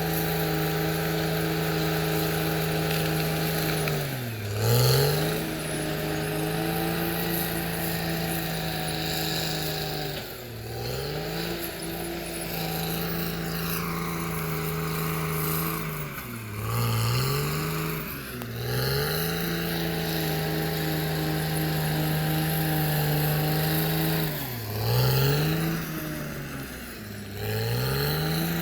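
CAT D6R XL bulldozer's diesel engine running at steady high revs, its pitch dipping sharply and recovering about six times, once every few seconds. Around the middle a fainter higher whine slides downward.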